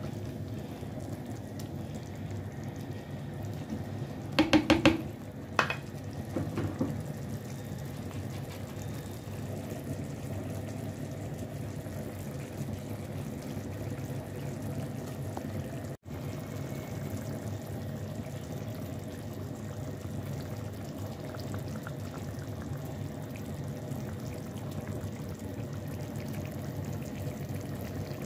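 Tomato and onion sauce simmering in a clay tajine, a steady bubbling, with a few sharp knocks about four to six seconds in.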